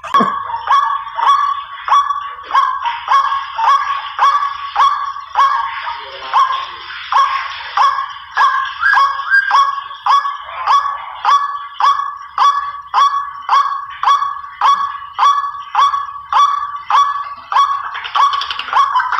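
White-breasted waterhen (ruak-ruak) calls played as a hunting lure: a loud, unbroken series of harsh call notes, about two a second.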